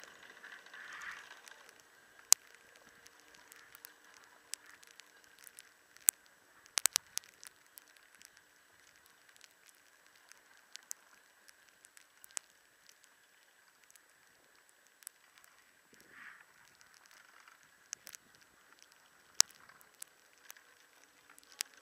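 Skis sliding quietly uphill on packed snow while being towed on a surface drag lift. Scattered sharp clicks and crackles come from the lift pole and gear, over a faint steady hum.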